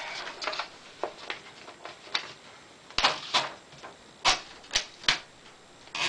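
Commodore 2200 portable manual typewriter being handled as a sheet of paper is loaded and the paper support set: a series of separate sharp metal clicks and clacks, the loudest between about three and five seconds in.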